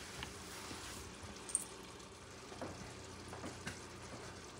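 Quiet kitchen room tone: a faint steady hiss with a few light taps from handling containers, the clearest about one and a half seconds in.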